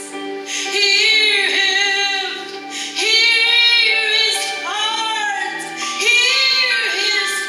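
A woman singing into a microphone over sustained instrumental chords, in phrases of a second or two with held, wavering notes.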